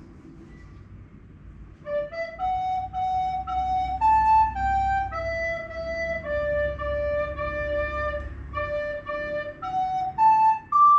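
A recorder sight-reading a slow tune: after about two seconds of silence, single clear notes begin, mostly short and stepwise, with one longer held note in the middle.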